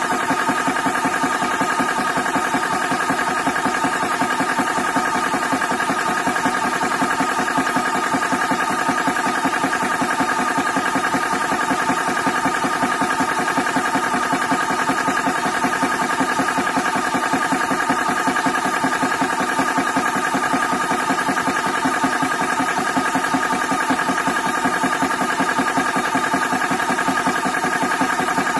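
Small portable high-pressure air compressor running steadily, pumping air through a fill probe into a PCP air rifle's air tube as the tube's pressure builds.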